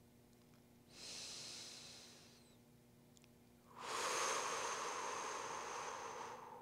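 A woman breathing deeply while holding a stretch: a quieter breath about a second in, then a longer, louder breath from about four seconds in.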